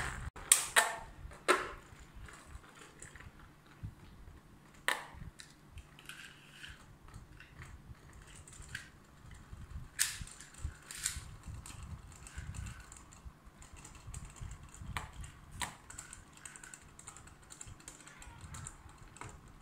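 Beyblade spinning tops launched into a plastic Tupperware box and spinning there: a faint whir with scattered sharp clacks as the tops strike each other and the box walls, the loudest near the start and about ten seconds in.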